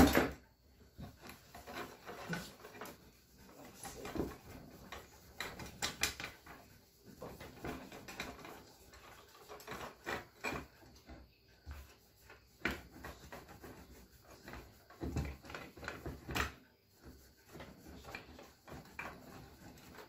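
A cloth rubbing and scrubbing over the aluminum housing of a 1923 GE Premier Junior vacuum cleaner in irregular strokes as it is polished, with knocks and clunks as the housing is handled. A sharp knock comes right at the start.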